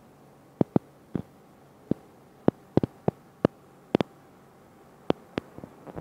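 About a dozen sharp clicks at irregular spacing, often two close together, over a faint steady background: handling noise from a small clip-on microphone being moved and knocked against a laptop's plastic case.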